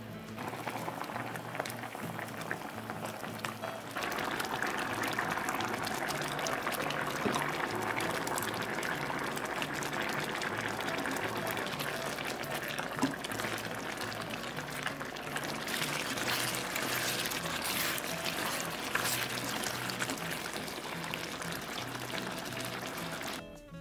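Pork back rib braise boiling down in a stainless steel pan, a steady bubbling that grows louder about four seconds in, under background music with a steady beat.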